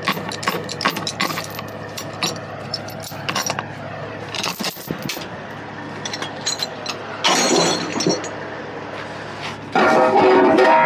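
Quick metallic clinks and clanks from heavy equipment being loaded, with a louder harsh burst near the end.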